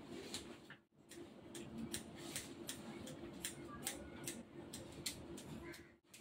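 Barber's scissors snipping hair over a comb in quick, faint snips, about three a second, blending the fade.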